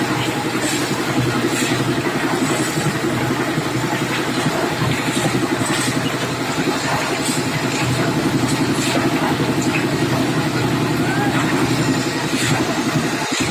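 A concrete mixer's engine running steadily, with scattered short clinks and knocks over it.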